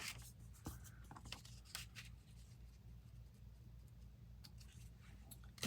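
Faint rustling and clicks of paper being handled, mostly in the first couple of seconds, over a low steady hum.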